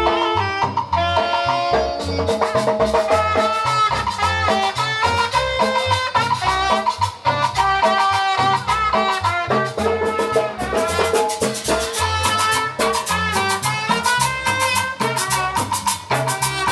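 Lively Latin dance music from a band: a brass melody over bass and a steady drum beat, with the percussion getting busier about two-thirds of the way through.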